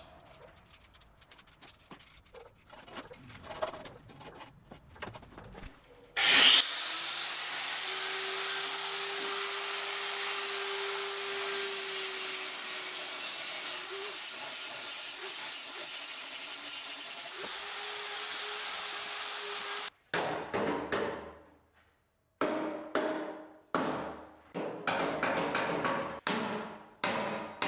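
A power tool starts suddenly about six seconds in and runs steadily for about fourteen seconds with a hiss and a held hum. Short, sharp bursts follow near the end.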